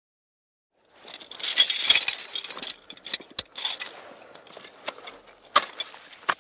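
A sound effect: a crash with a bright, ringing clatter, then scattered clinks and small pieces landing one by one, quieter over time.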